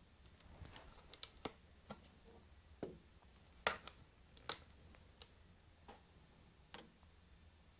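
Faint, irregular light clicks and taps, about a dozen spread over several seconds, against a quiet room; the two strongest come a little past halfway.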